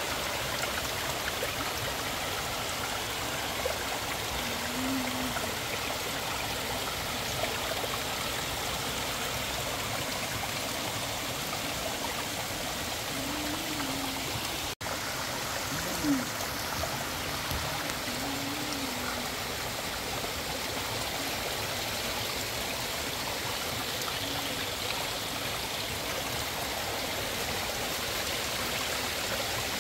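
Fast-flowing river rushing steadily, an unbroken wash of water noise, which cuts out for an instant about halfway through.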